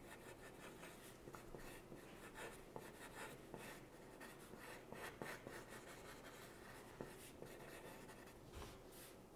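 Faint scratching of a graphite pencil on paper, many quick short strokes as curly hair is sketched.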